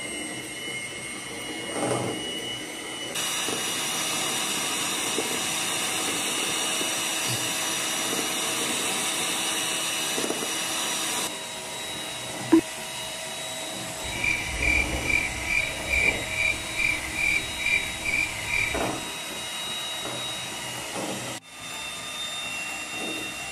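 Handheld electric hand mixer running, its twin beaters whipping instant coffee, sugar and hot water in a glass bowl toward a foam; a steady motor whine that shifts in pitch and level twice in the first half. Past the middle, a sharp click and then a run of about ten quick pulses, roughly two a second.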